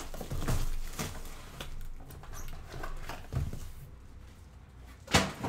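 Filament spool packaging being handled and unwrapped by hand: scattered rustles, scrapes and light taps, with a couple of sharper knocks near the end.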